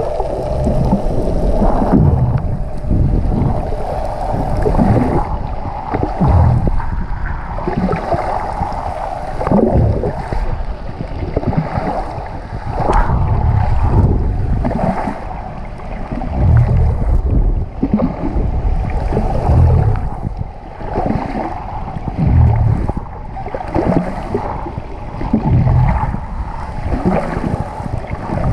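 Muffled rushing and rumbling of water around an underwater camera, swelling and ebbing every two or three seconds as the swimmer moves.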